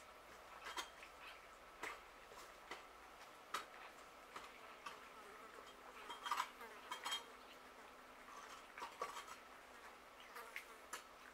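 Several cats eating from a shared dish on a concrete floor: faint, irregular clicks and crunches of chewing and of food and teeth against the dish, a few louder ones about six to seven seconds in. A faint steady high whine runs underneath.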